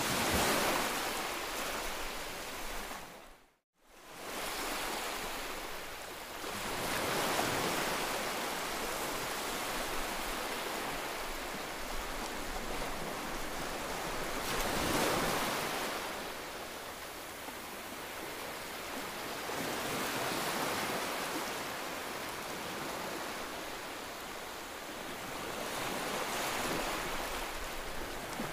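Small waves washing onto a sandy beach: a steady hiss of surf that swells and eases every five or six seconds. The sound drops out for a moment about three and a half seconds in.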